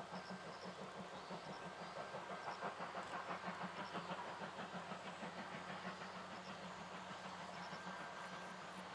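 Steam locomotive heard from a distance, its exhaust beating in a steady rhythm as it works away from a standing start. A few faint high chirps sound over it.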